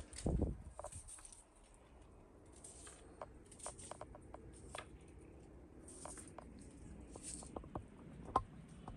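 Scattered light clicks and taps of cooking being handled, with a few brief hissy spatters, a low thump just after the start and a sharp click near the end.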